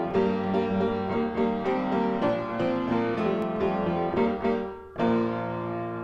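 Intro music: a piano plays a melody over chords, with a short pause just before a final chord near the end.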